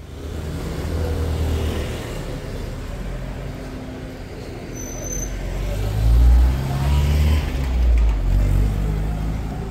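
Street traffic: motor vehicle engines running and passing, with a low engine hum that grows louder about six seconds in.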